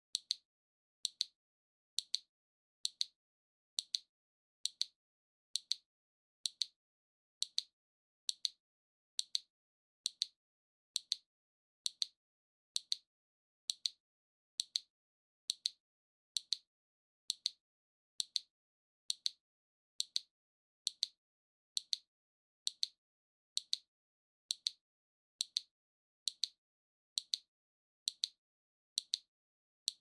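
Battery-powered waving lucky cat (maneki-neko) figurine's arm mechanism ticking as the paw swings: a sharp, high click about once a second, evenly spaced.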